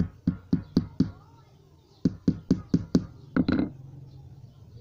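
Hammer tapping on a wooden stick: sharp, light knocks about four a second, in two runs of five with a short pause between, then two more near the end.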